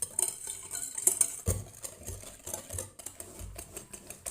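Eggs and sugar being beaten by hand in a bowl, without an electric mixer: a fast run of clicks and scrapes as the utensil strikes the bowl, with a heavier knock about a second and a half in.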